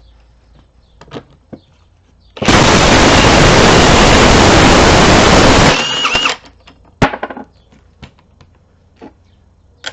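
Impact wrench run in one burst of about three seconds, spinning the front yoke nut off an NP229 transfer case, then cutting off abruptly. A single sharp clank follows about a second later.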